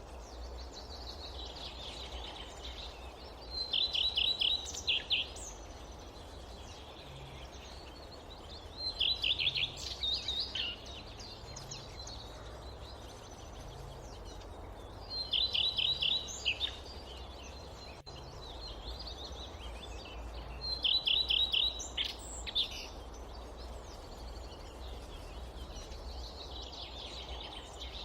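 A songbird repeats a short song of rapid, high trilled notes about every six seconds, five times in all. Beneath it runs a steady low background of forest ambience.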